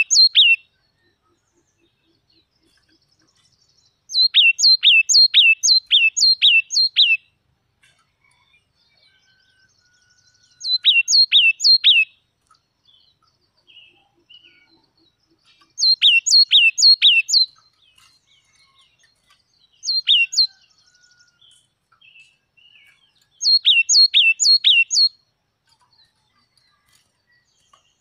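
Yellow-cheeked tit singing: five bursts of loud notes, each burst a run of quick downward slurs repeated two or three times a second, with soft calls between the bursts.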